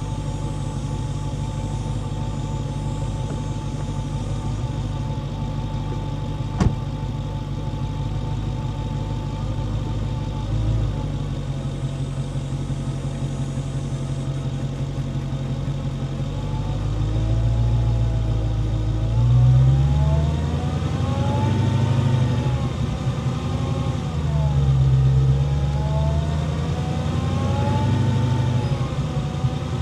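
Dodge Charger Hellcat's supercharged 6.2-litre V8, picked up by a mic in the engine bay beside the supercharger: steady running for the first half, then repeated rises and falls in pitch as it accelerates and eases off, with the supercharger whine gliding up and down with the engine note. A single short click about a third of the way in.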